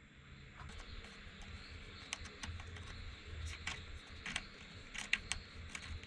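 Faint, irregular small clicks and taps of hands working with a hex key and a fused balance-cable lead at a battery terminal block.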